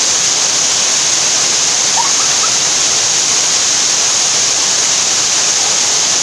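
Loud, steady rush of a waterfall pouring over rocks into a pool at its base.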